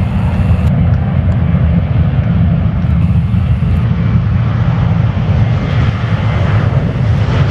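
Boeing 737-800's CFM56 jet engines running loud and steady, a deep rumble with a lighter hiss above it, as the airliner rolls down the runway for takeoff.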